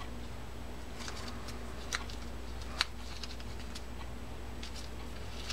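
Light clicks and ticks of small metal fishing-reel parts being handled as the side plate, bridge plate and anti-reverse dog are fitted back together, two sharper clicks standing out about two seconds and three seconds in. A steady low hum runs underneath.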